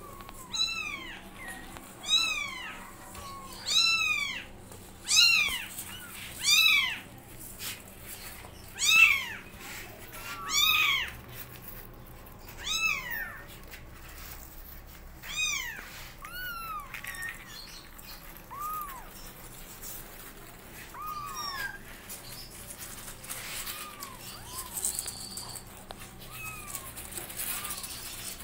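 Newborn kittens meowing over and over, short high calls that rise and fall in pitch, one every second or so at first, then fewer and fainter after the middle.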